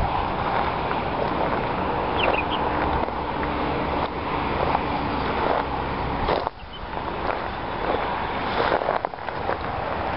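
Wind buffeting the microphone outdoors, easing off briefly about six and a half seconds in, with a couple of short bird chirps about two seconds in.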